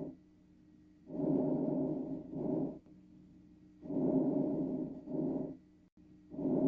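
Lung breath sounds as heard through a stethoscope: two full breath cycles and the start of a third, each a longer, louder phase followed after a brief pause by a shorter, softer one, over a faint steady hum. The breaths are clean, with no crackles or wheezes.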